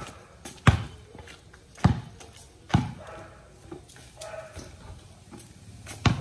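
Basketball bouncing on a concrete court: three dribbles in the first three seconds, then a pause and one more bounce near the end.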